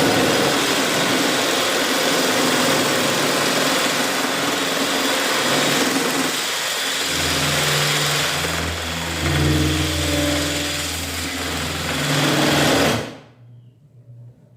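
Cordless screwdriver driving a jigsaw attachment, its blade running back and forth through a pine strip with a loud, steady buzzing rattle; the cut is going hard. It stops about a second before the end.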